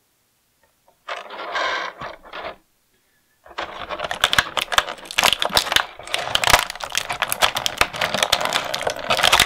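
A brief soft rustle about a second in, then from about three and a half seconds a thin clear plastic blister tray crackling and crinkling in a dense run of sharp clicks as fingers press and flex it to free small action-figure accessories.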